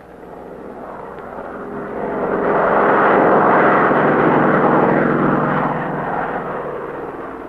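Propeller airplane's engine on a low spraying pass. It grows louder, is loudest about three seconds in, then fades away.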